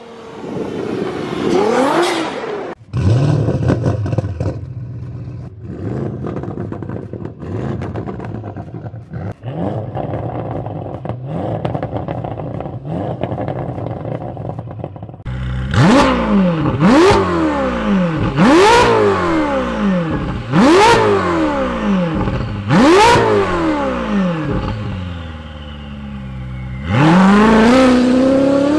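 Performance car engines and exhausts in quick succession. First a Nissan GT-R drives along a snowy road. Then an Audi RS6 MTM's V8 runs and is blipped five times, each rev rising sharply and falling back. Near the end a Ferrari 488 GTB's V8 starts pulling away with a rising note.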